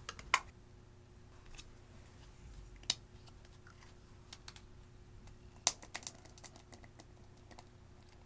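Clear slime being worked by hand, giving off irregular sticky clicks and snaps as it is pressed and pulled. A few louder pops come about half a second, three seconds and five and a half seconds in.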